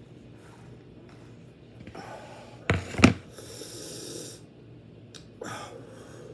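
Close-miked eating: chewing and heavy breathing through the nose, with a loud, sharp sound a little under three seconds in, a hiss right after it and another short sound about five and a half seconds in.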